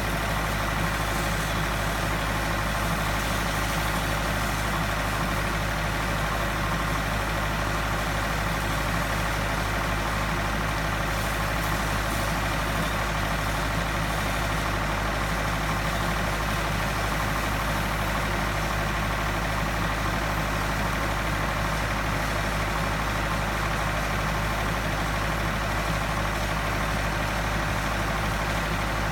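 Steady, unchanging drone of an engine-driven pump unit running, with a low hum and an even hiss on top, as it feeds a high-pressure water jet washing substation insulators.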